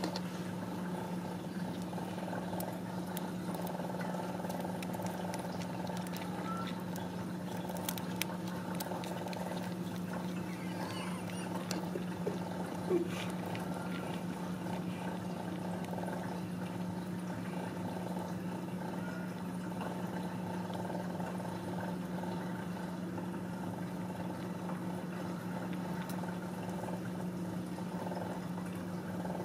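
Ragdoll mother cat purring steadily while her newborn kittens nurse, with a brief faint squeak about thirteen seconds in.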